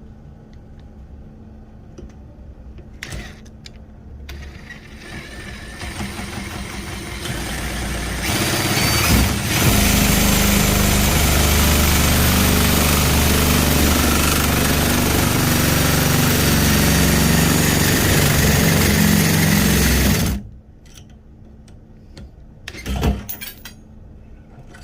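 Power drill boring into a hose quick-connect coupling with a large bit: it builds up over a few seconds, runs steadily for about twelve seconds, then stops abruptly. A brief knock follows a few seconds later.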